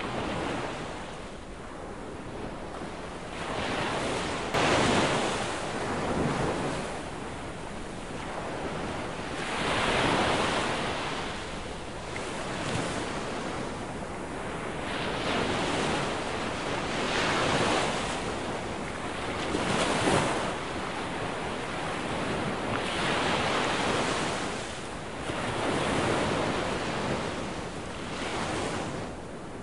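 Baltic Sea surf: waves breaking and washing onto a sandy beach one after another, the noise swelling and falling back every two to four seconds, with wind on the microphone.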